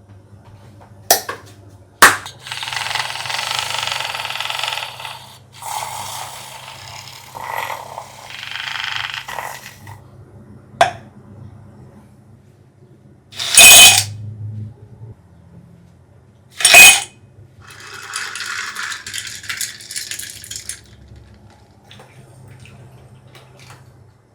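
Kitchen handling sounds while a drink is being made. There are a couple of sharp clicks, stretches of hiss-like noise, and two loud clinks with a ringing tail about three seconds apart.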